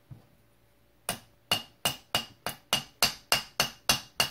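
Light, rapid hammer taps on the steel hammer pin of an AR-15 lower receiver, about three a second and ringing, as the pin is driven toward the trigger hammer. The fire-control hammer is not quite lined up, so the pin is being worked in with repeated light taps.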